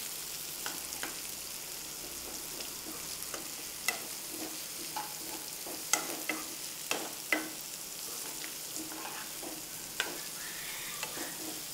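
Chopped onions sizzling in hot oil in a frying pan, with a spatula scraping and tapping the pan at irregular moments as they are stirred.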